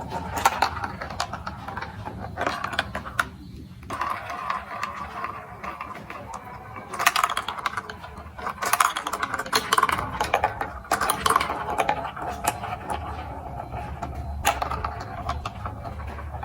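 Marbles rolling and rattling along a plastic building-block marble run, with many sharp clicks and clacks as they drop and knock against the blocks, busiest in clusters through the middle.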